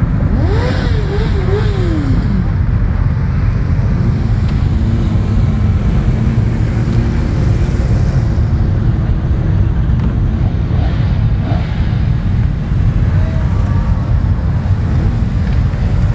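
Motorcycle engines running among a crowd of parked bikes over a steady low rumble. In the first couple of seconds one engine is revved, its pitch climbing, wavering and falling away.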